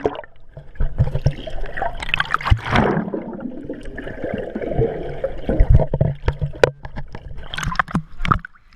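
Sea water splashing and gurgling close by, with scattered knocks and a low rumble.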